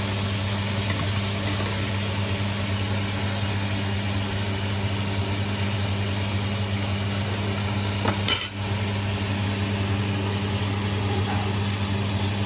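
Monkfish pieces sizzling as they brown in olive oil and butter in a stainless steel frying pan, with metal tongs clinking and scraping against the pan, including a short knock about eight seconds in. A steady low hum runs underneath.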